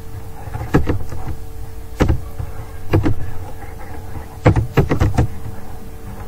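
Computer keyboard keys pressed one at a time while typing, irregular clicks with a quick run of four keystrokes about four and a half seconds in, over a faint steady hum.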